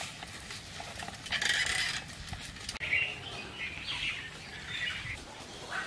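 Birds chirping and chattering in two spells of calls, the first about a second in and the second running from about halfway to near the end.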